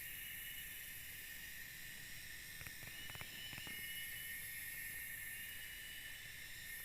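Forest insects calling in chorus: a steady high buzzing, with a higher call that starts up and holds again every few seconds. A few faint clicks come near the middle.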